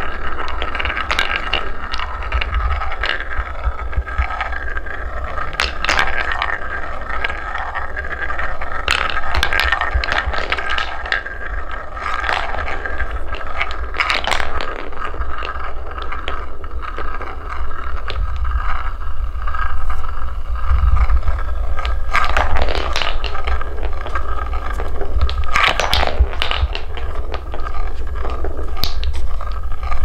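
Wooden balls rolling along the grooved wooden blocks of a marble run: a continuous rolling rumble with a ringing wooden tone, broken by many sharp clacks as balls knock into each other and the track.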